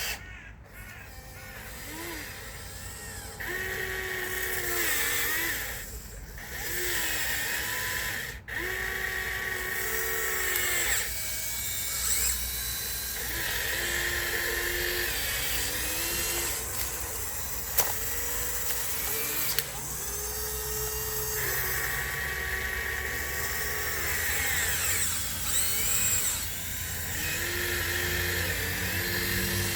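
Electric drive motors of a radio-controlled Huina 1554 bulldozer whining in short runs of a few seconds, starting and stopping again and again, the pitch rising as each run starts and falling as it stops. A couple of sharp clicks come about two-thirds of the way through.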